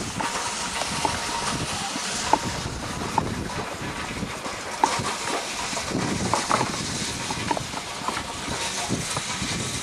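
Wind rushing on the microphone as a steady hiss, with scattered small clicks and knocks and a few brief faint high notes.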